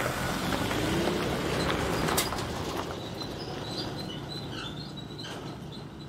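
A vehicle driving past close by on a dirt road, its tyre and engine noise loudest at first and fading away, with a sharp knock about two seconds in. Faint bird chirps come through as it fades.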